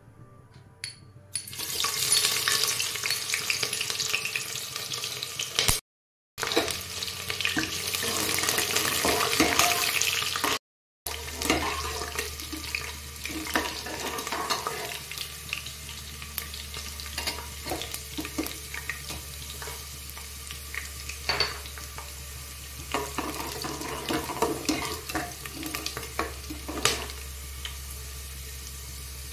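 Sliced onions frying in hot oil in an aluminium pressure cooker: a loud sizzle starts about a second and a half in, then settles into steadier frying with the scrapes and clicks of a metal spatula stirring against the pot. The sound drops out twice, briefly, and a low steady hum runs underneath the later part.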